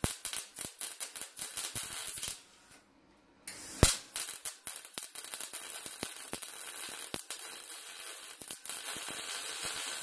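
MIG welder arc crackling as a bead is run along the seam of a replacement inner panel on a 1967 VW bus door's sheet steel. The arc stops after about two seconds, restarts a second later with a sharp pop, then crackles on steadily.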